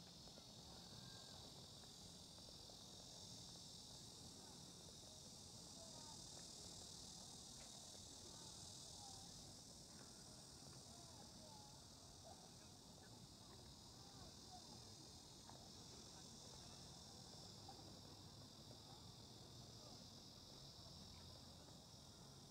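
Faint, steady high-pitched chorus of crickets and other insects chirring.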